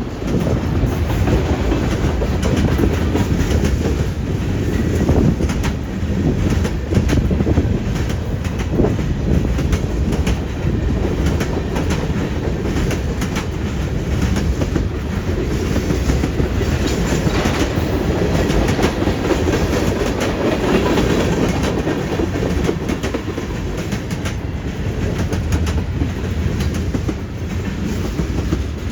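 CN freight train 396 rolling steadily past, its steel wheels clickety-clacking over the rail joints.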